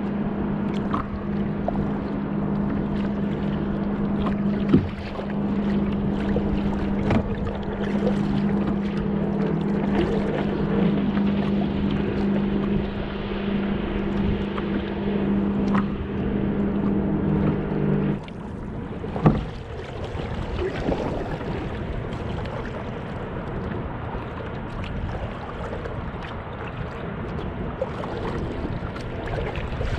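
Kayak moving through choppy water, the hull washing and slapping along, over a steady motor hum that cuts off suddenly about eighteen seconds in. Two sharp knocks, one early and one just after the hum stops.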